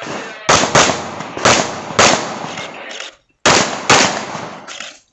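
Handgun shots fired in quick succession during an IPSC practical-shooting stage, about six in all, two pairs close together then single shots, each ringing out with echo, with a short break a little past the middle.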